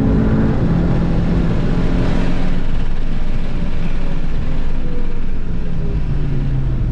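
VW Golf 7 GTI TCR's engine heard from inside the cabin under heavy road and wind noise; over the last few seconds the engine note falls slowly as the car slows.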